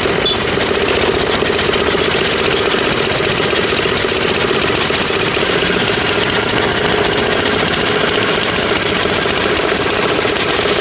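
Concrete mixer's engine running steadily at an even speed, with a steady hum that does not change.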